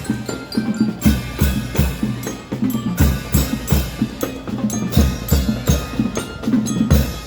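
Marching band playing: drums beat a steady, regular rhythm with heavy bass drum hits, and pitched melody tones sound over them.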